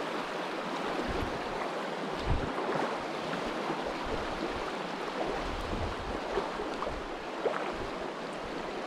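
Shallow river rushing over cobbles in a riffle, a steady wash of water. A few soft low bumps stand out briefly, about two seconds in and again near the middle.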